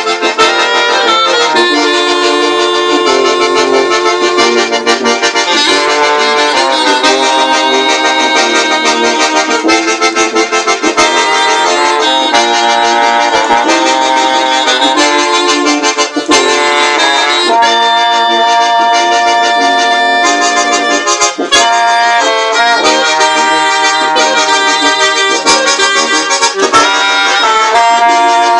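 A small ensemble of trombone, tuba, clarinet and accordion playing a tune together, the accordion and brass carrying held notes that change every second or so. The sound is loud and thin, with almost no deep bass.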